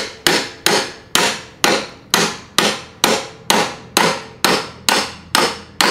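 Repeated hammer blows at a steady pace of a little over two a second, each with a short ring after it, forcing a tool into a safe to break it open.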